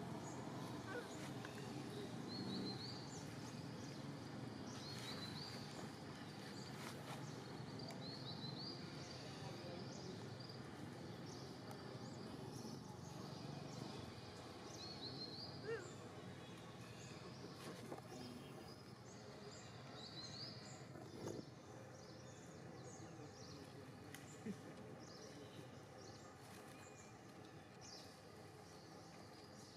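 Steady outdoor background hiss with a short, high rising chirp that repeats every few seconds, and a few faint clicks.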